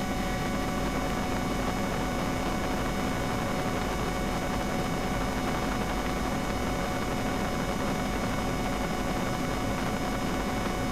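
Helicopter in flight heard from inside the cabin: a steady hum and rushing noise with several faint high whining tones, unchanging throughout.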